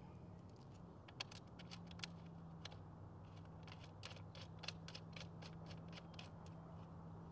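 Light, irregular clicking of a bolt being threaded by hand into a battery terminal post, over a faint steady hum.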